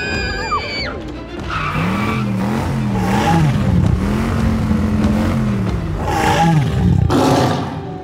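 Car engine running hard, its pitch rising and falling, with tyre-skid noise near the end, over background music.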